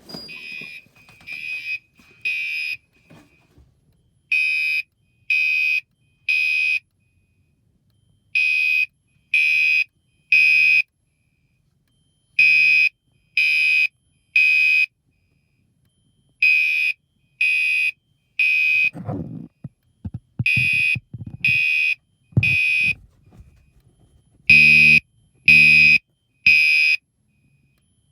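Fire alarm horns sounding the temporal-three evacuation pattern: three half-second blasts of a high horn tone about a second apart, then a short pause, repeating about seven times. Some low knocks come between the blasts a little after halfway.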